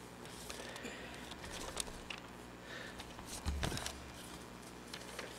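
Faint rustling and handling of paper sheets close to a microphone, with soft scattered clicks and a dull low thump about three and a half seconds in.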